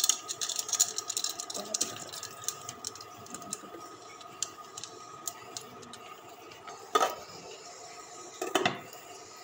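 Popcorn kernels poured into a nonstick pan of hot oil, pattering and ticking densely for the first couple of seconds as they hit the pan and are stirred with a spoon. A steady whine from the induction cooktop runs under it. A knock comes about seven seconds in and another near the end as a lid is set on the pan.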